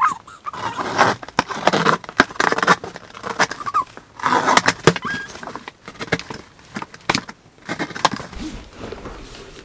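A long cardboard parcel being opened: packing tape cut and torn along the seam, with the cardboard rustling and scraping in an irregular run of crackles, rips and knocks.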